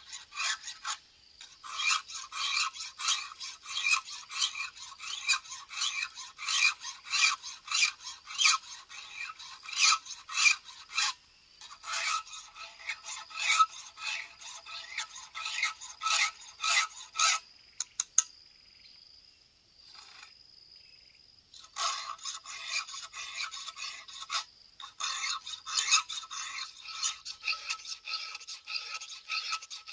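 A file being pushed across the cutters of a STIHL MS 070 chainsaw chain in quick, regular rasping strokes, with a pause of a few seconds a little past the middle.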